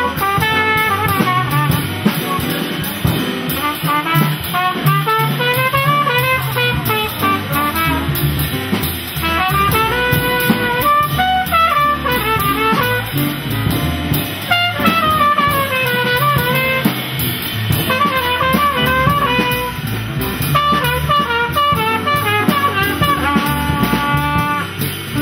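Live small-band jazz: a trumpet plays a solo of quick rising and falling runs over piano and rhythm-section accompaniment.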